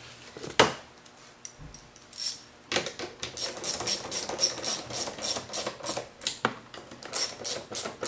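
Hand ratchet with an 8mm socket clicking in rapid strokes as it tightens the nuts holding a car's side mirror to the door. A single sharp knock comes under a second in, and the fast ratcheting starts about two seconds in.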